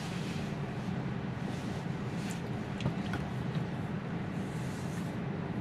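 Steady low hum of background noise inside a stopped Tesla's cabin, with a few faint ticks near the middle.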